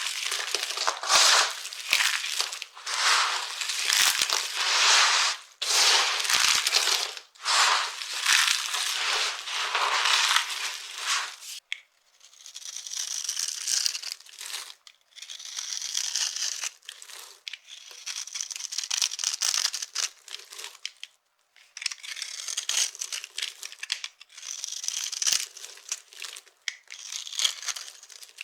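Dry soap crunching as it is crushed, in dense crackly bursts. About twelve seconds in it gives way to quieter, higher-pitched scraping strokes of the soap being cut, repeated every second or so.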